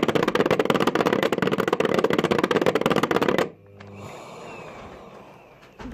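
Rapid, dense rattling clatter from the filter-cleaning mechanism of a Bosch BGS7PRO1 bagless vacuum as its Clean button turns the filter to shake the dust down into the container. The rattle stops abruptly about three and a half seconds in, leaving a faint hum.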